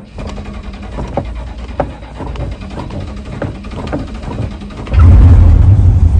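A vehicle engine running with scattered ticks and rattles over a low rumble; about five seconds in a much louder, deep rumble suddenly sets in.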